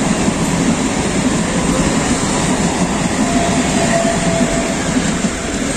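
Mumbai suburban local electric multiple-unit train running past on the adjacent track: a steady rumble of wheels and carriages. A faint whine comes in briefly about three seconds in.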